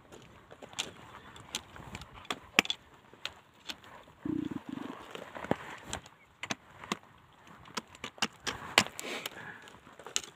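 Irregular crunches and clicks of footsteps shifting on loose rock and gravel. A short, low two-part hum comes about four seconds in.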